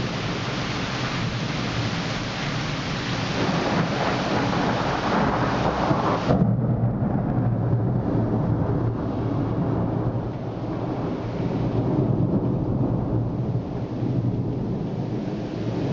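Thunderstorm with heavy rain hissing and thunder rumbling low. About six seconds in, the bright rain hiss drops away suddenly, leaving mostly the low rumble.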